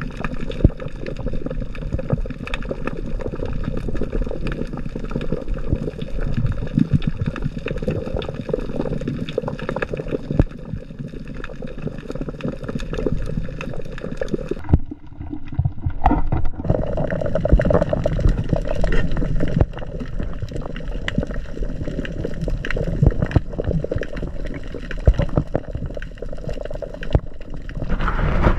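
Muffled underwater noise heard through a submerged camera: a low, steady rushing rumble with scattered crackling clicks, dropping away briefly about halfway through.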